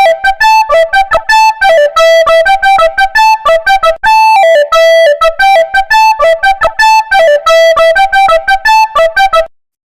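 Instrumental ringtone melody: a single line of short, plucked-sounding electronic keyboard notes in a repeating phrase. It stops abruptly about half a second before the end.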